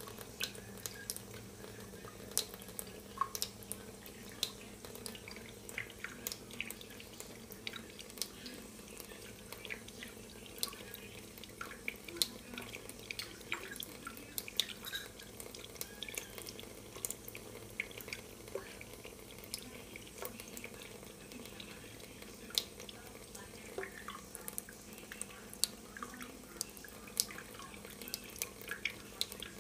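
A thin stream from a kitchen faucet trickling into a stainless steel sink, with many small, irregular drip and splash ticks on the steel.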